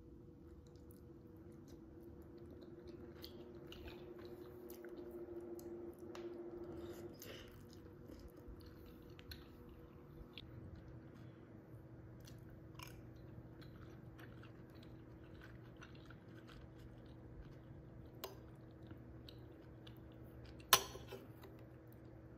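Quiet chewing of soft wontons, with small clicks of a metal spoon on a ceramic bowl; the loudest is one sharp, ringing clink near the end. An electric fan runs steadily underneath.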